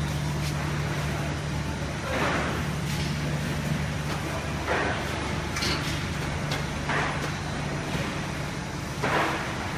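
Tunnel baking oven running: a steady machine hum under an even hiss, with a few short louder bursts of noise.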